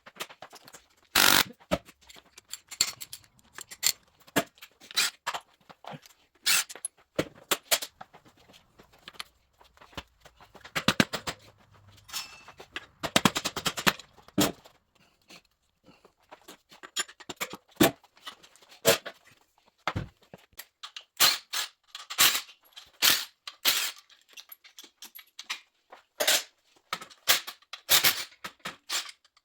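Irregular sharp metallic knocks and clanks of hand tools and parts during a dirt bike teardown, with a quick run of rapid strikes about halfway through.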